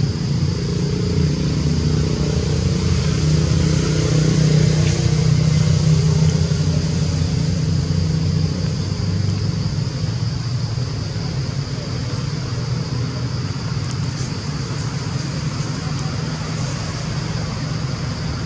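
Low engine rumble of a motor vehicle, loudest about five seconds in and then easing off, over a steady high-pitched whine.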